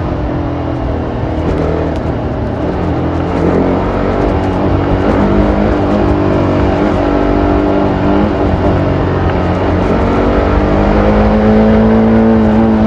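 TVS Apache RR310's 313 cc single-cylinder engine through its stock exhaust, running steadily at low revs while riding. The revs climb gradually over the last few seconds.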